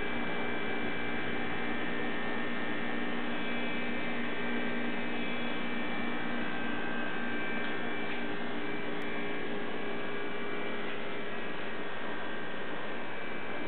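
A steady electrical hum over constant hiss, made of several unchanging tones with no clear events.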